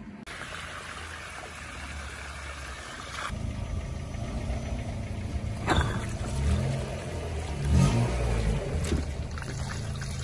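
Water hissing from a garden hose into a large water balloon for about three seconds. Then a car engine starts running, revs a few times as the car's tyre rolls onto the balloon, and there are a few sharp knocks and splashes as water spurts out.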